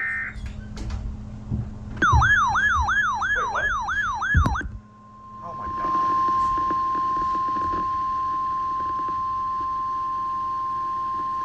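Emergency alert tones: a short digital data burst at the start, then a rapidly yelping siren tone sweeping up and down about three times a second for a couple of seconds. After a short gap comes a long, steady single-pitch alert tone, the 1050 Hz NOAA Weather Radio warning tone that comes before a spoken warning.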